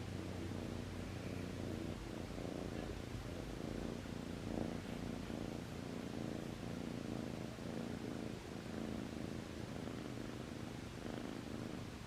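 Kitten purring steadily.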